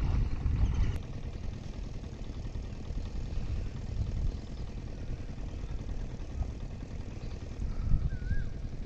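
A small engine running steadily some way off, an even low hum. A louder low rumble fills the first second.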